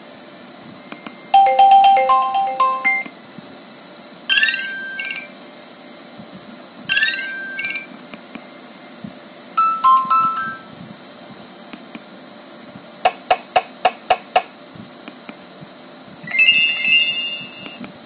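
Nokia 2600 mobile phone playing short previews of its built-in ringtones through its small speaker as the ringtone list is scrolled. Each electronic melody lasts about a second and breaks off before the next begins. One has quick rising sweeps, and another is a run of six quick beeps.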